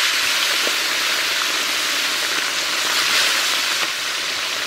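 Turmeric-and-salt-coated katla fish pieces frying in hot mustard oil in a wok: a loud, steady, dense sizzle.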